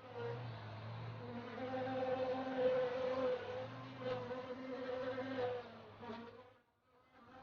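Bees buzzing, a pitched hum that wavers up and down in pitch and loudness. It breaks off briefly near the end, then starts again.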